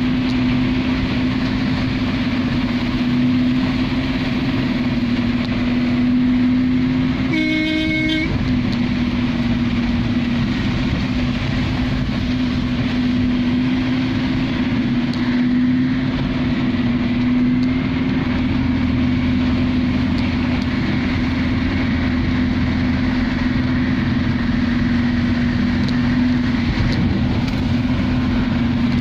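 Heavy rain falling on a vehicle's roof and windscreen, heard from inside the cabin, over the steady hum of its engine. A horn sounds briefly, about seven and a half seconds in.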